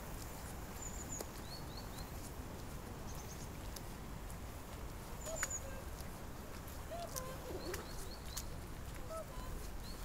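Outdoor ambience of steady low wind rumble, with small birds chirping in short quick runs of high notes several times, a few lower calls in the second half, and a few faint light clicks.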